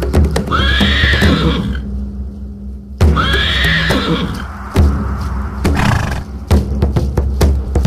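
Horse whinnying twice, two near-identical calls about two and a half seconds apart, over electronic music with a steady beat.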